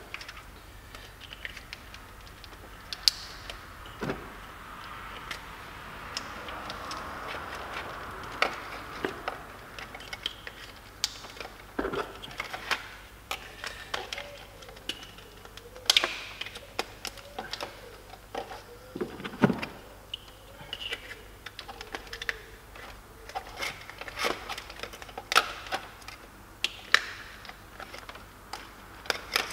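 Irregular clicks and light knocks of ignition coils and parts being handled and pushed back into place on an engine, a few of them sharper than the rest.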